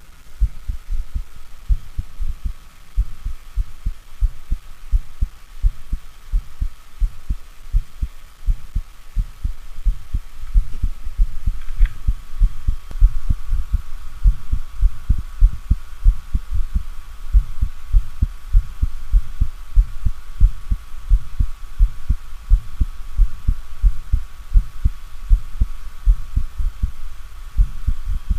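Heart sounds of mitral stenosis: rapid, regular low thuds of the heartbeat with a low rumbling diastolic murmur, caused by turbulent blood flow from an enlarged left atrium through a narrowed mitral valve. A faint steady hum runs beneath, and the beats get louder about ten seconds in.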